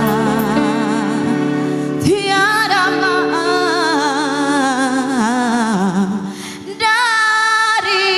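Live dangdut music: a female singer holds long, wavering notes in an ornamented melisma over band accompaniment, with a brief thinning just before another long held note near the end.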